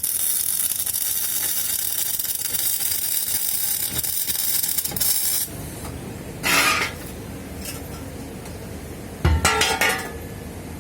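MIG welding arc crackling and hissing steadily, cutting off abruptly about halfway through. Then two short, loud noisy bursts follow a few seconds apart, the second beginning with a low thump.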